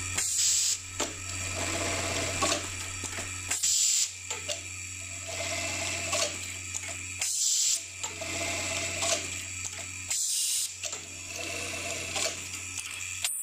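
Industrial button-sewing machine with a Smith SM SBF1 automatic button feeder, running repeated button-sewing cycles over a steady motor hum. Each cycle ends in a short hiss, about every three and a half seconds.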